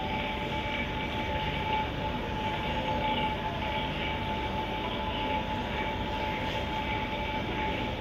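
Steady mechanical hum and rushing noise of the fish room's running equipment, with a few faint held whining tones in it.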